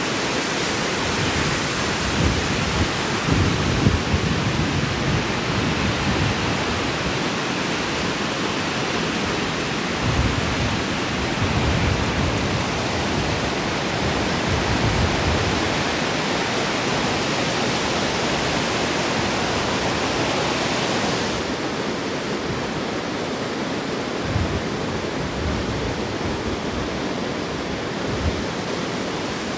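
Steady hiss of rain and wind outdoors, with irregular low rumbles of gusts buffeting the microphone. The hiss turns duller about two-thirds of the way through.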